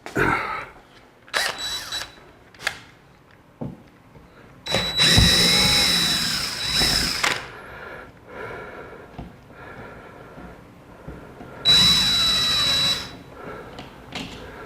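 Cordless drill-driver whirring in two short bursts, its motor pitch rising and falling, as it turns the screws of a GFI outlet, with a few clicks of handling before.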